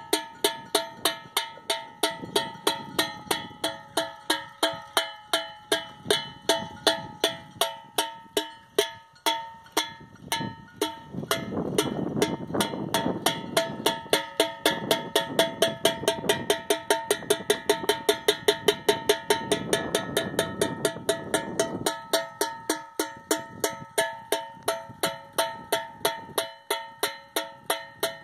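Wind-driven noise-maker: a windmill-turned striker knocking over and over on an empty tin can on a bamboo pole, a ringing metallic clank about three times a second. It is a scarer meant to keep wild boars off the crop. About halfway through, a gust speeds the strikes up to about five a second, with a rush of wind noise, then they slow again.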